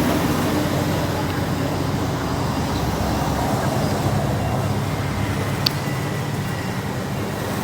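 Heavy diesel road-construction machinery running steadily, a low engine hum over constant rumbling noise, with one short sharp click about five and a half seconds in.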